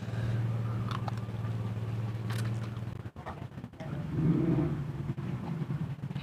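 A steady low motor hum that steps up in pitch about three seconds in, under eating sounds: two short clicks of a fork, then swallowing as a drink is taken from a glass.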